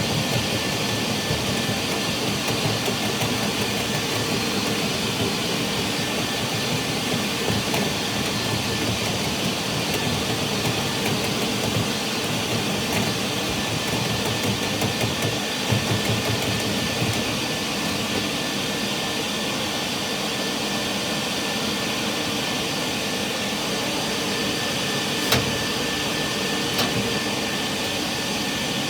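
Vacuum running steadily while cleaning out a dryer vent, with a faint high whine over the rushing air. Two short knocks come near the end.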